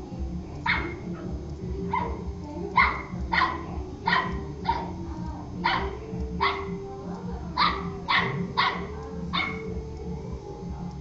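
A puppy barking about a dozen times, short sharp barks at uneven intervals, with the barks stopping shortly before the end.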